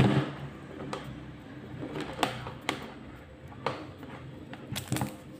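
Scattered small clicks and taps of thin wire and pliers being handled while stripping an RCA cable's ends, with one sharper click right at the start.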